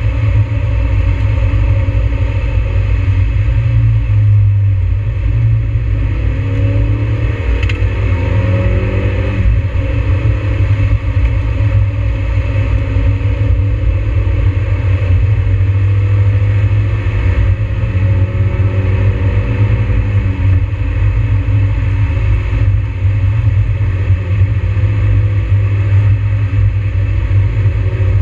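Mazda NB Miata's four-cylinder engine heard from inside the cabin while driving, its revs rising and falling several times as it accelerates and shifts, over a heavy steady low rumble.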